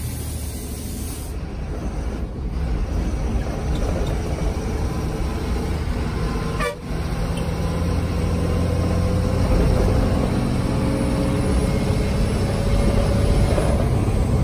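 Bus diesel engine running, heard from inside the driver's cab. There is a brief dip about seven seconds in, then the engine note rises slowly as the bus picks up speed.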